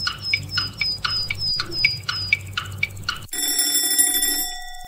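Countdown-timer ticking sound effect: short plinking ticks, about four a second. About three seconds in it stops and an alarm-clock ring starts sharply, marking that the time to answer is up; the ring fades near the end.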